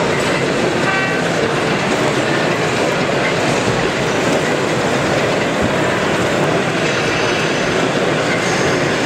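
Model diesel locomotive running with DCC sound: a steady, dense engine and running noise from a BR Class 26 model hauling goods wagons. A brief horn-like toot sounds about a second in.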